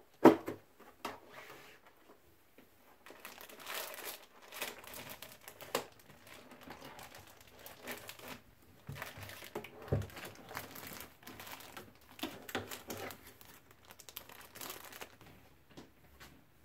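Thin clear plastic bag crinkling in irregular bursts as it is handled. There is a sharp knock just after the start, the loudest sound, and a duller thump about ten seconds in.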